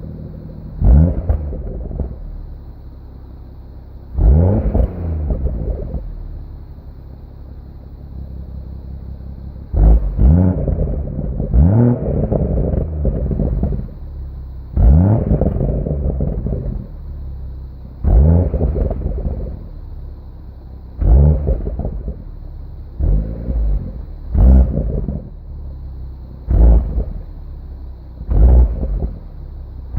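BMW M140i's 3.0-litre turbocharged straight-six idling and being blipped about a dozen times, each rev rising and falling within a second or two. The owner says the exhaust rattles.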